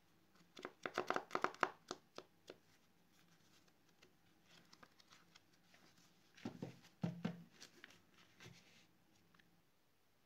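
A stack of folded paper sheets being handled and jogged against a tabletop to square the edges: a quick flurry of crisp paper taps and rustles about a second in, softer rustling, then a few duller knocks around seven seconds.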